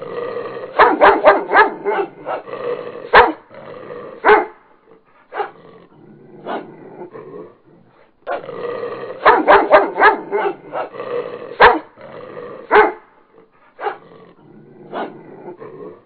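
A dog barking: two quick volleys of barks, the first starting about half a second in and the second about eight seconds in, with a few single barks in between and near the end.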